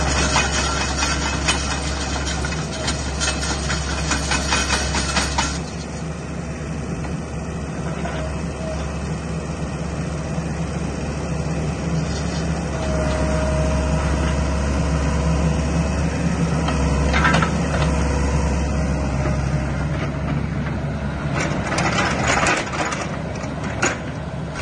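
Sany SY60C mini excavator's diesel engine running steadily. Its steel tracks clatter for the first five seconds or so, and again for a few seconds near the end, as the machine moves. A short hydraulic whine comes in the middle.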